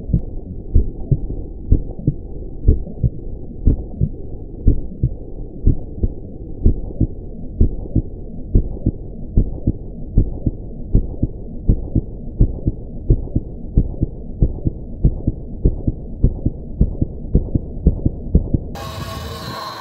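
Muffled, rhythmic low thumping, about one strong beat a second with lighter ones between, with all the high end cut off, as in an edited intro soundtrack. About a second before the end the sound opens up to full range: wind and riding noise.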